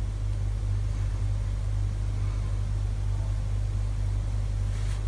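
A steady low hum or rumble with a faint hiss over it, unchanging throughout.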